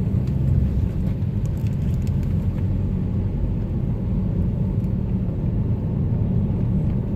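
Steady low rumble of a moving vehicle's engine and road noise during a ride through city streets.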